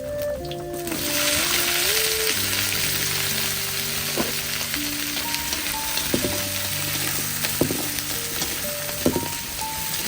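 Food sizzling in hot oil in a pan; the sizzle starts suddenly about a second in. A few sharp clicks of a utensil stirring break through it, over soft background music.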